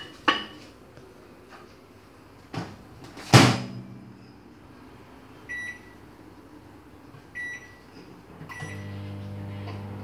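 A dish clinks down onto a microwave oven's glass turntable, and the door shuts with a loud clunk about three seconds in. Three keypad beeps follow, and near the end the microwave starts running with a steady low hum.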